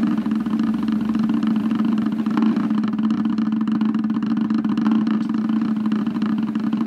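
A vehicle engine idling, a steady unbroken hum.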